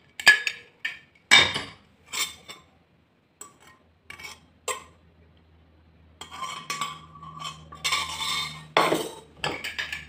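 A used pressure cooker and its lid handled: a run of sharp metal clinks and knocks, then a spoon clattering and scraping in the pot. A low steady hum comes in about four seconds in.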